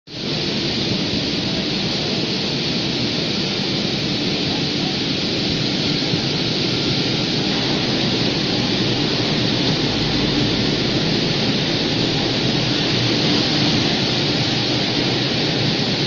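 Ginger washing machine running: a steady, loud rush of water over ginger on its wire-mesh conveyor.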